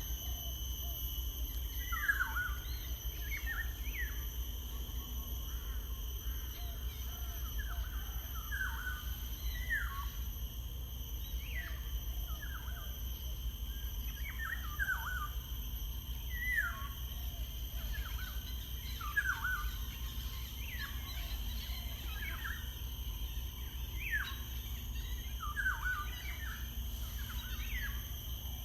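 Birds calling outdoors: short, falling chirps repeated every second or two over a steady low rumble and a faint constant high hum.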